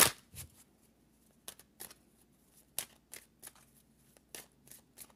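Tarot cards being handled: a short rustle at the start, then about a dozen light, crisp clicks and snaps at irregular intervals.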